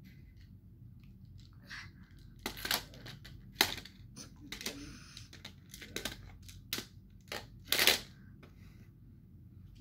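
Small toy pieces clacking and knocking together as a toddler handles them: irregular sharp clacks, about a dozen over several seconds, the loudest about three and a half and eight seconds in.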